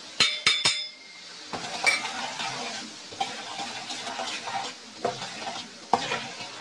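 A steel plate clinks sharply three times against a metal kadhai as powdered spices are tipped in. Then a perforated steel spoon stirs and scrapes through the hot oil, which sizzles, with occasional clinks of the spoon on the pan.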